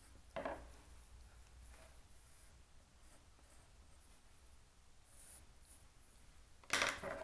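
Pencil drawing lines on graph paper: faint strokes, the clearest about half a second in, with a few fainter ones after. A louder sound comes near the end.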